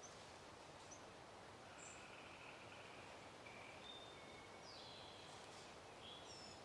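Near silence with a soft steady hiss, and several faint, short, high-pitched bird calls scattered through it.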